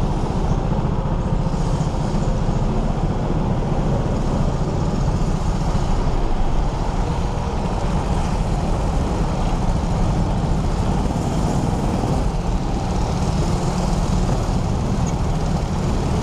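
Go-kart running, heard through a camera mounted on the kart: a loud, steady low noise that keeps the same pitch throughout.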